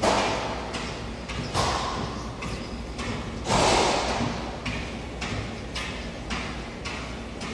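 A person breathing hard during a workout, blowing out three loud breaths about two seconds apart. Under the breaths, light thuds keep a steady beat about twice a second.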